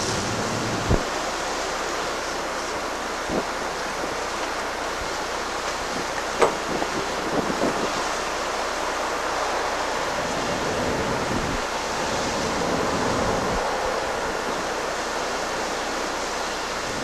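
Steady rushing background noise, like wind on the microphone, with a few light knocks about one, three and six seconds in as a gasoline can and carpet are handled on a metal box.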